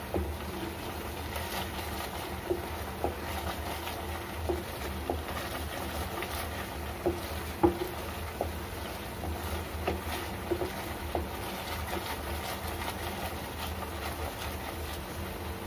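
Spatula scraping and knocking against a pan as thick, reduced milk for rabri is stirred continuously, in irregular strokes with one louder knock past the middle; this is the late stage, when the milk begins to stick to the bottom and would burn if left. A steady low hum runs underneath.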